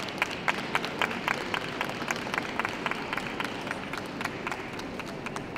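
Ringside spectators clapping, several sharp separate claps a second over a steady hall murmur, fading away near the end.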